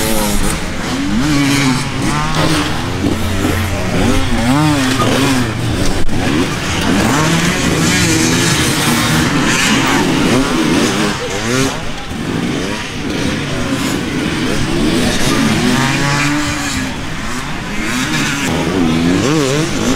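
Several dirt bike engines revving up and down over and over, their pitch rising and falling every second or two and overlapping.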